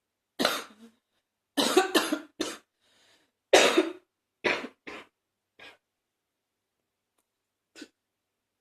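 A person coughing with a congested chest: short coughs in quick bunches of two or three, the loudest about three and a half seconds in, tailing off to a single small cough near the end.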